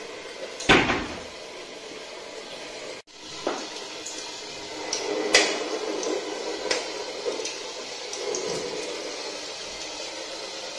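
One loud knock with a short ring about a second in, then several lighter clicks and knocks over a steady background hiss.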